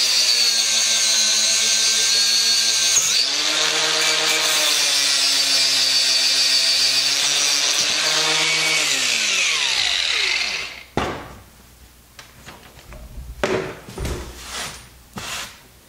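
Angle grinder with a thin cutting disc running and cutting through a thick copper battery cable, with a steady high whine and hiss. About nine seconds in it is switched off and winds down with a falling whine. A few light knocks of handling follow.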